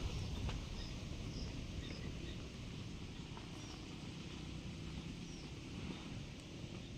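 Quiet outdoor ambience: a low, uneven rumble under a soft hiss, with faint, short, high bird chirps every second or so.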